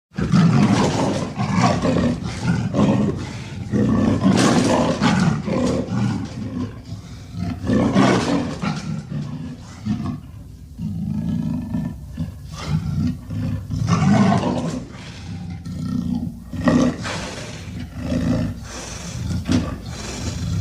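Werewolf sound effect: a long run of deep, rough growls and snarling roars that swell and fade every second or two. A few more drawn-out, tonal cries come about halfway through and again near the end.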